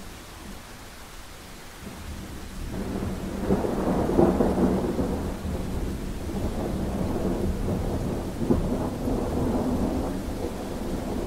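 Thunder rolling over steady rain: about three seconds in a rumble swells up, peaks, and keeps rumbling with crackling peaks while the rain hisses on.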